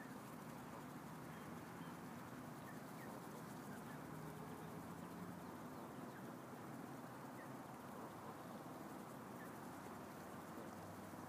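Canada goose goslings giving a few soft, high peeps over a steady faint outdoor hiss.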